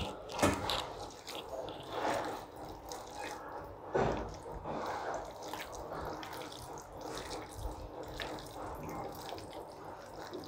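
Hands squelching raw chicken pieces through a yogurt and spice marinade in a bowl: irregular wet squishes, with louder ones about half a second and four seconds in.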